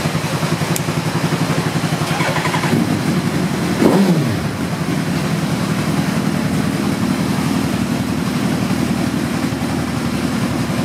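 Suzuki Hayabusa inline-four motorcycle engine idling with a steady pulsing rumble, given one quick blip of the throttle about four seconds in that rises and falls back to idle.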